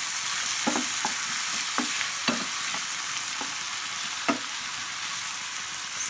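Pork, onion, garlic and tomato sizzling steadily in hot oil in a frying pan, while a wooden spatula stirs and knocks against the pan about seven times at an uneven pace.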